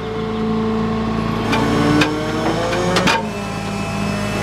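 Flatbed tow truck's engine running with the PTO engaged, driving the hydraulics as the bed is raised: a steady mechanical hum with a few sharp clicks and short rising tones midway.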